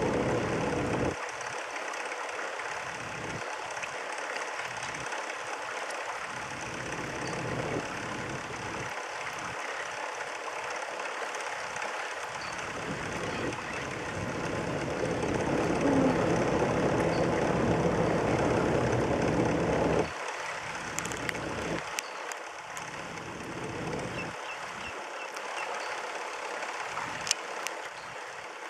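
Motorboat engine running with water rushing along the hull. It grows louder in the middle, then drops sharply about two-thirds of the way through.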